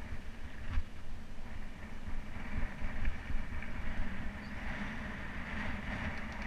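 Wind buffeting and rumble on an action camera riding a mountain bike down dirt singletrack, with tyre noise on the dirt and the bike rattling over bumps, including a few short knocks.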